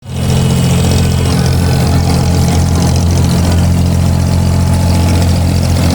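Diesel engine of an abra water taxi running steadily, a low hum with a hiss of noise above it.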